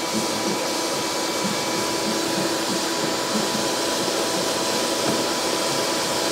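HEPA vacuum running steadily, with a loud even hiss and motor hum, its hose held against the drywall cut to suck in the dust while cutting.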